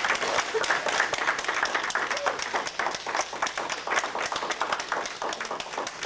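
A roomful of people applauding, many hands clapping at once, easing off a little near the end.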